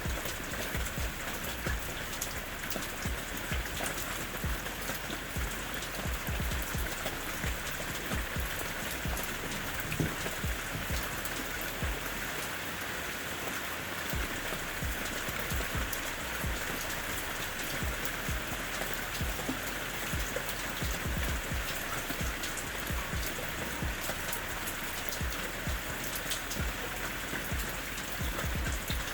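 Steady rain falling, an even hiss full of fine, sharp drop ticks, with one slightly louder knock about ten seconds in.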